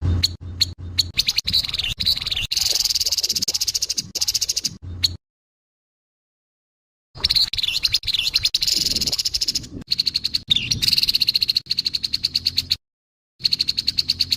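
Grey-headed babbler (tepus kepala abu) giving harsh, fast rattling calls in three bursts, two long and one short near the end, with dead silence between them.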